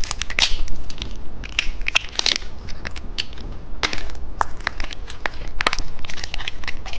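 Plastic candy packaging crinkling and crackling in irregular sharp clicks as it is handled and opened.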